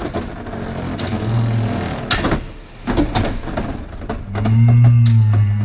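Beyblade tops, Hells Scythe and Rock Aries, spinning and colliding in a plastic battle stadium: a rattling whir with many sharp clacks as they strike each other and the stadium. A low steady hum swells about four seconds in.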